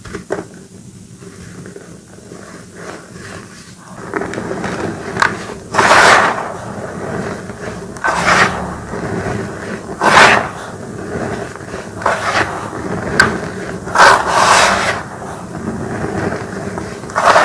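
Hands pushing and pressing loose crushed gym chalk powder into a heap, a dry rubbing crunch. It is quiet for the first few seconds, then runs steadily from about four seconds in, swelling louder about every two seconds as the hands press in.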